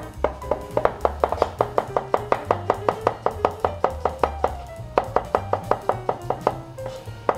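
Chef's knife slicing vegetables on a plastic cutting board in quick, even strokes, several a second, over background music with a pulsing bass line.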